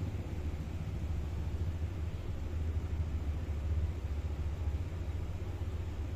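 A steady low rumble with a faint hiss over it, a little louder in the middle.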